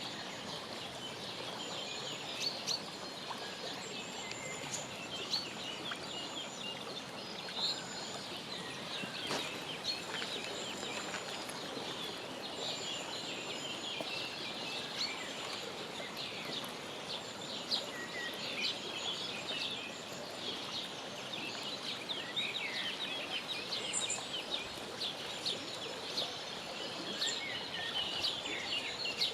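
Mallard ducklings peeping: a dense, continuous chatter of short high peeps over a steady outdoor background hiss.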